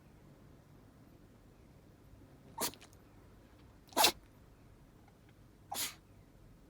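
A dog sneezing three times, each a short sharp burst, the middle one the loudest. The owner suspects pollen allergy (hay fever) as the cause.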